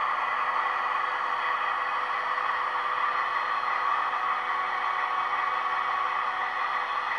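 ESU sound decoder in a Roco model FS D345 diesel locomotive playing a steady diesel engine idle, taken from a recording of the real D345, through the model's small onboard speaker. It sounds thin, with almost no bass.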